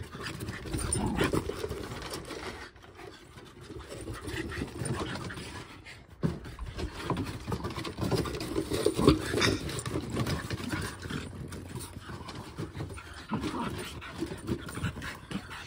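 A rat terrier, a French bulldog and a Mudi play-fighting rough: short growls and panting, with scattered clicks of claws and paws on wooden decking.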